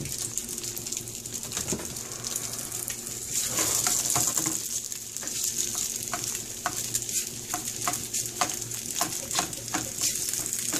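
Diced sausage sizzling in olive oil in a frying pan, a steady hiss that swells a little a few seconds in. Through the second half a spatula clicks and scrapes against the pan about twice a second as it stirs the pieces.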